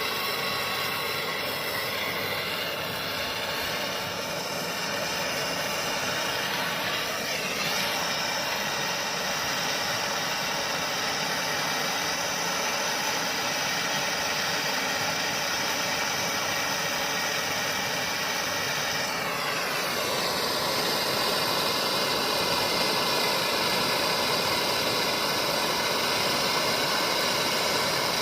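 A motor-driven machine running steadily with a whine of several tones. The pitch shifts briefly about seven seconds in and again near twenty seconds in, after which it runs slightly louder.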